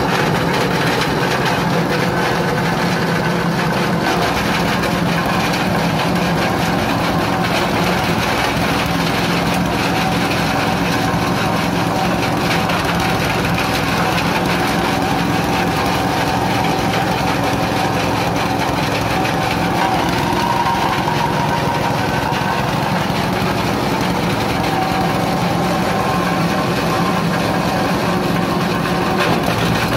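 Engine-driven coconut husk grinding machine running steadily while shredding coconut husk into fibre and dust.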